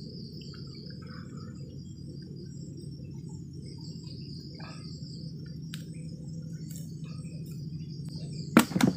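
A steady high insect chorus from the riverbank vegetation over a low steady hum, with a couple of sharp knocks near the end as the net and a freshly caught fish are handled in the wooden boat.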